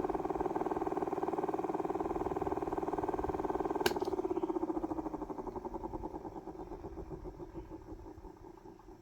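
A small electric fan motor runs with a steady, fluttering hum. A click about four seconds in switches it off, and it slowly spins down, the hum fading and dropping a little in pitch.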